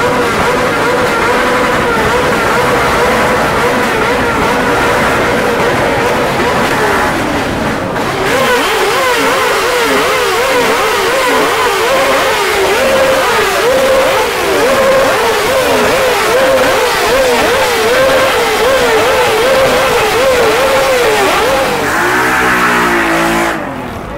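Several sport motorcycle engines revved hard: one held at high revs at a steady pitch for several seconds, then throttles blipped up and down over and over, with other engines revving beneath. The sound drops away suddenly near the end.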